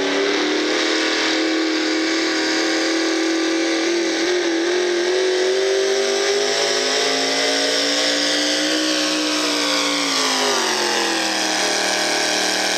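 V8 engine of a hot rod pulling tractor running hard at high revs while dragging a weight-transfer sled. The engine note climbs slowly, then drops about ten seconds in and holds lower.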